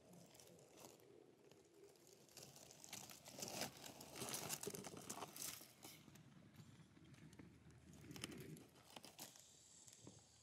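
Faint crinkling and rustling of dry corn stubble on a layout blind, in irregular crackles that are busiest a few seconds in and again near the end.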